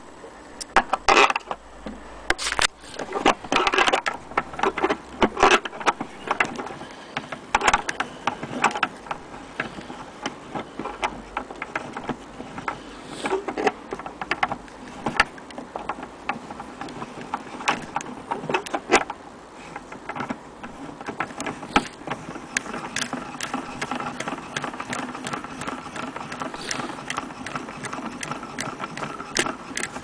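Clicks, knocks and rattles of an antique gramophone's wooden case and metal parts being handled, coming thick and irregular; in the last several seconds a steadier mechanical whirr with an even pitch runs underneath.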